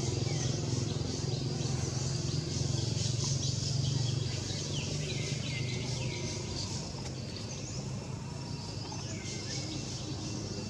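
Repeated high-pitched calls, each falling quickly in pitch, coming in quick runs with short gaps, over a steady low hum.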